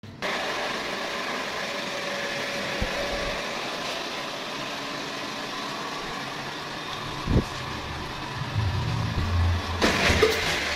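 Steady running hum in a water-filter plant room. About seven seconds in there is a knock as a fibreglass filter tank's multiport valve handle is turned, and near the end water starts to rush through the filter.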